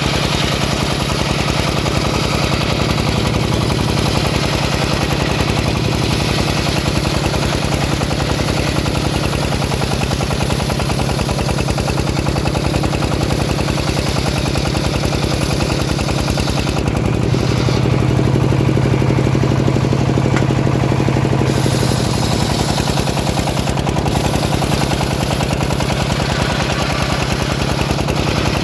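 Engine of a homemade sawmill running steadily under load, with a rapid, hard-pulsing exhaust beat. A little past the middle, for about four seconds, the engine note deepens and the high hiss drops away, then returns.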